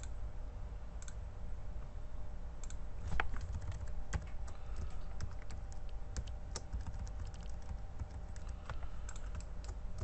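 Irregular clicking of a computer mouse and keyboard: a few clicks in the first seconds, then many in quick, uneven succession, over a low steady hum.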